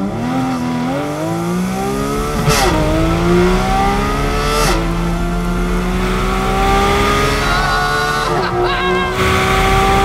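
Porsche 718 Cayman GT4 RS's naturally aspirated 4.0-litre flat-six accelerating hard on track. The engine note climbs steadily, then drops sharply with a short crack at each of two quick PDK upshifts a couple of seconds apart. After a long pull, the revs fall with a few quick blips near the end.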